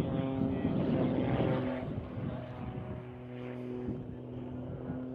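A propeller aircraft's engine droning at a steady pitch, with wind noise on the microphone for the first couple of seconds.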